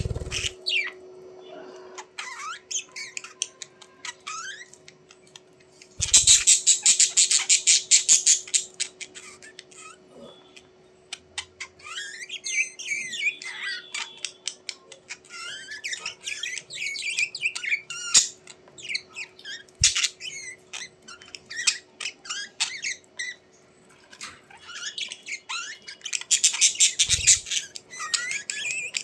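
Birds calling: scattered squawks and chirps, with two loud bouts of rapid, harsh chattering, one about six seconds in and one near the end.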